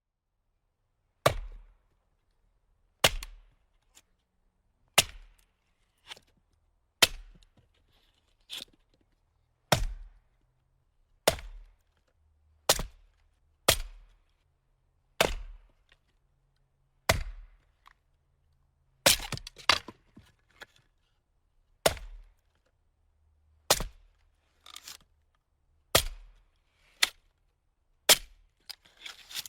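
Axe chopping: sharp, single strikes every one to two seconds, with a few quicker double strikes near the end.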